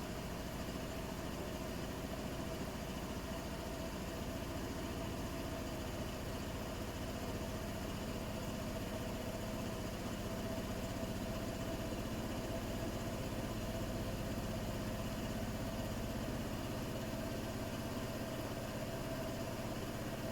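Bosch iDos Serie 6 WAT286V0 washing machine running through a 90°C boil-wash cycle: a steady mechanical hum with a constant mid-pitched tone and no change in speed.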